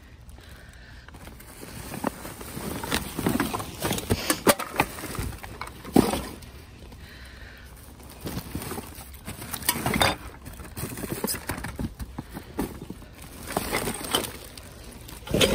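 Plastic garbage bags rustling and crinkling in irregular handfuls, with sharp crackles, as a gloved hand grabs and tugs at a bag to pull it out from among the others.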